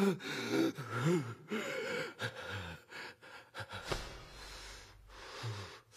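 A person gasping and breathing hard, with short voiced breaths that rise and fall in pitch over the first few seconds, then fade into quieter panting. The exhaustion follows a knockout blow in a boxing bout.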